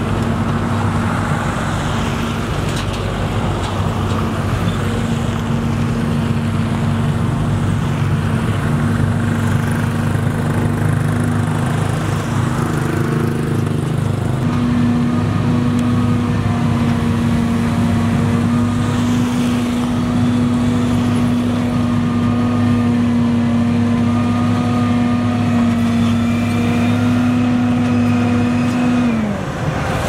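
Motor grader's diesel engine running steadily under load as its blade grades soil. The engine note steps slightly higher about halfway through and drops away near the end.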